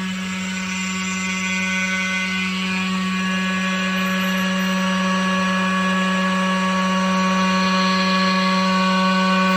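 Tomahawk Pro CNC machine running steadily while machining a plate: a steady multi-tone machine whine from the spindle and drives, growing gradually a little louder.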